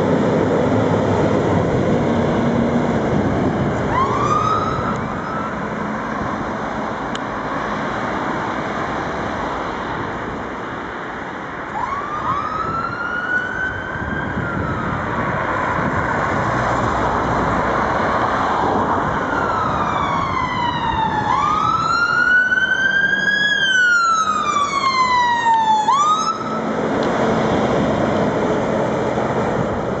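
Fire engine's two-tone-free wailing siren: a short upward sweep about four seconds in, a single rise and fall around twelve seconds, then a continuous slow wail sweeping up and down from about twenty seconds in, cutting off near twenty-six seconds. Under it runs the appliance's engine as it pulls away, with steady road noise throughout.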